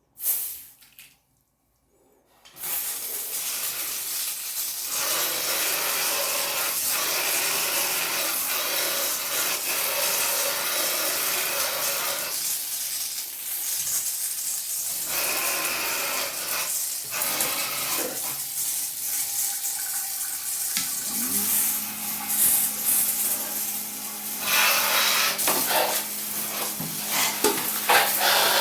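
Water spraying and splashing from a homemade DC water pump's outlet, a steady rushing noise that starts a couple of seconds in. A steady low hum joins about three quarters of the way through.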